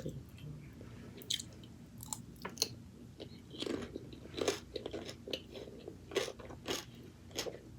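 A person chewing and biting crunchy food close to the microphone: a string of irregular sharp crunches, starting about a second in.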